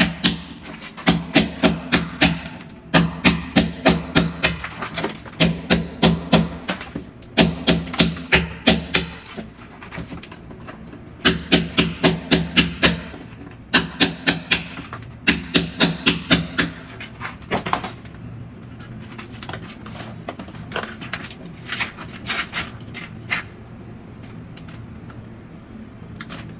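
Hammer striking a chisel to chip concrete out of a wall channel. The blows come in quick runs of about four to five strikes a second with short pauses between. They grow sparse in the last third and stop near the end.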